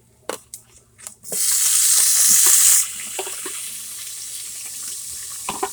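Onion tipped into hot oil and browning garlic, bursting into a loud sizzle about a second in after a few clicks of a utensil. The sizzle eases after a second and a half to a steady frying sizzle, with a few knocks of the spoon near the end.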